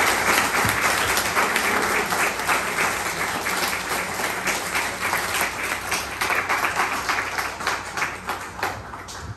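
Audience applauding: dense hand-clapping that gradually thins out and dies down near the end.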